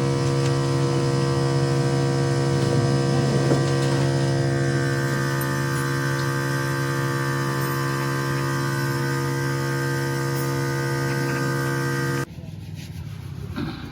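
A steady machine hum at one pitch, with many overtones, that cuts off abruptly about twelve seconds in.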